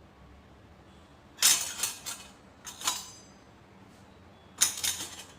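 Freshly washed stainless steel spoons and utensils clinking against each other as they are handled, in three short bursts of ringing metal clinks about a second and a half apart.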